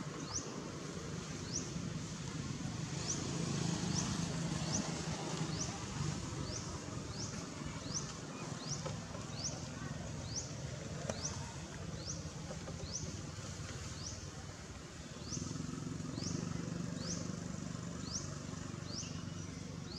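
A small bird calling: a short, high chirp that slides downward, repeated steadily about once a second, over a low background rumble.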